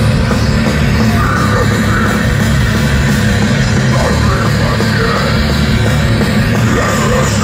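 Death metal band playing live at full volume through the PA: distorted electric guitars, bass and drums, heard from within the crowd.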